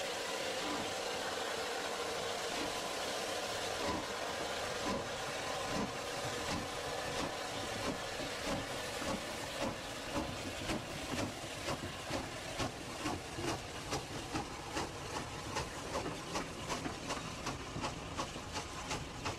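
Southern Railway Q1 0-6-0 steam locomotive starting away with a train: a steady hiss of steam, then exhaust chuffs that come faster and faster as it gets under way, about two or three beats a second near the end.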